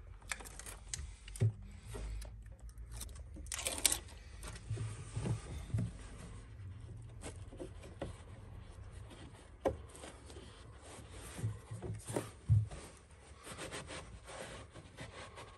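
Hands pressing and smoothing a carpet panel onto double-sided tape against a vehicle's bulkhead: intermittent rubbing and scuffing of the carpet, with scattered short knocks and clicks.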